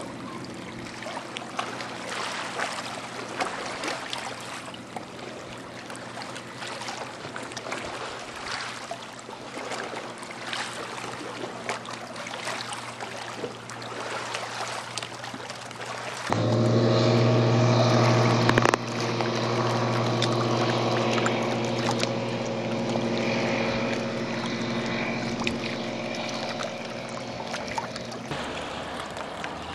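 Bush Caddy R-80 floatplane's Rotax 912 flat-four engine and three-blade propeller giving a steady drone as the plane flies past. It jumps suddenly louder about halfway through.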